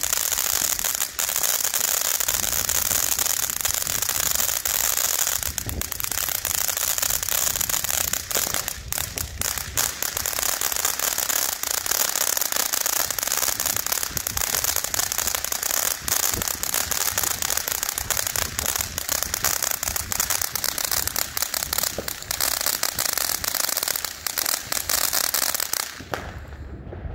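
Black Cat Neon Dragon ground fountain firework spraying with a steady hiss and dense crackling, which cuts off about a second before the end as the fountain burns out.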